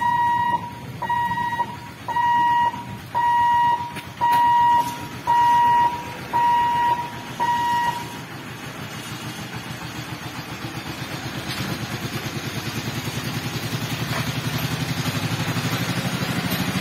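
Level-crossing gate warning hooter beeping eight times, about once a second in steady half-second tones, signalling the barrier booms are moving; it stops about eight seconds in. After that a truck's engine grows steadily louder as it approaches and crosses the tracks.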